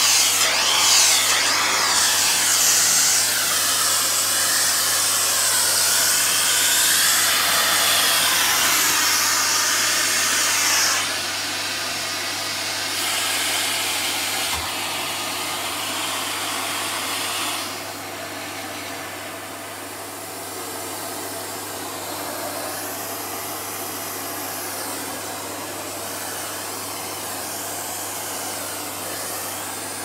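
Vacuum cleaner running, drawing air through its hose and round dusting-brush nozzle as it is worked over a shelf top. The rushing note wavers at first, then gets quieter about a third of the way in and again a little past halfway.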